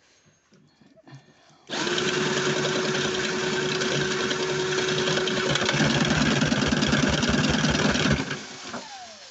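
A toy washing machine driven hard through a makeshift pen-axle drivetrain on its hand crank, starting suddenly with a loud mechanical whirr and rattle. It runs for about six seconds, then stops abruptly as the improvised drivetrain comes off.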